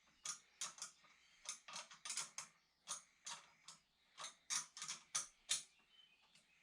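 Hand ratchet clicking in short strokes, two or three sharp clicks a second, as a nut is worked down.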